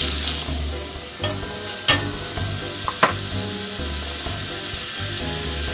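Butter sizzling as it melts in hot olive oil in a stainless steel skillet, loudest right at the start. Three sharp clicks of a metal utensil against the pan come about one, two and three seconds in.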